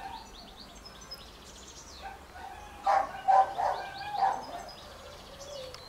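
Three-week-old Cocker Spaniel puppy squeaking and whimpering several times, short high cries bunched together about halfway through. Small birds chirp in quick high runs.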